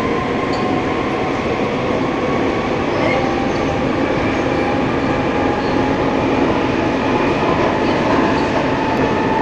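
Madrid Metro Line 9 train running through a tunnel, heard from inside the car: loud, steady wheel-on-rail running noise with a faint steady whine.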